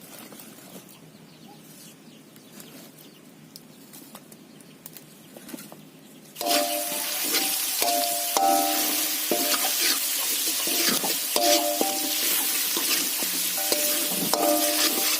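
Food frying in hot oil, sizzling loudly; it starts suddenly about six seconds in, after a quiet stretch with a few faint clicks. Short, steady tones recur over the sizzling.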